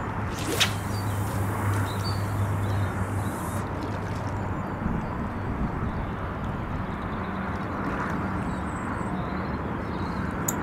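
Steady wind noise on the microphone, with a single short, sharp swish about half a second in as a carp rod is cast out.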